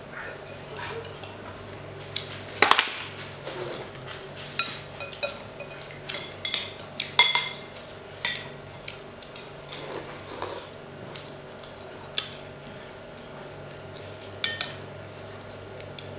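Metal spoons and a fork clinking and scraping against ceramic plates and a glass bowl during a meal, in scattered irregular clinks, one louder clatter about three seconds in, over a faint steady hum.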